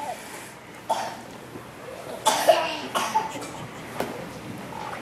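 Several short coughs from people in the audience during the hush before the music starts. The loudest cough comes about halfway through.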